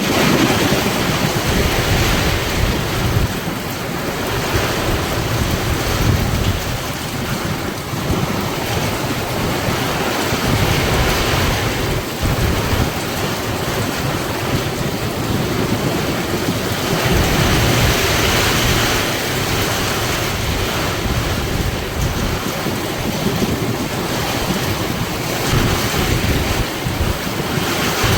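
Heavy rain pouring in a steady hiss, with gusts of wind buffeting the microphone as a low, uneven rumble.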